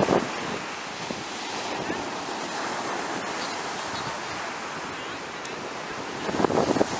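Ocean surf breaking and washing up a sandy beach, a steady rushing wash, with wind on the microphone. Brief louder buffets come at the start and again near the end.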